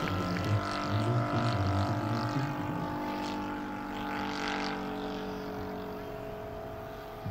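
Engine of a large-scale RC Hawker Sea Fury model in flight, a steady drone that fades as the plane flies away.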